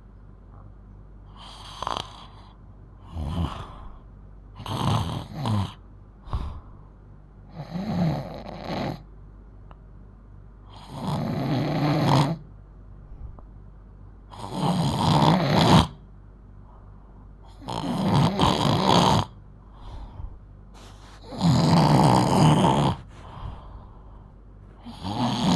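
A 12-year-old girl snoring loudly in her sleep, one snore every few seconds. The snores grow longer and louder toward the end.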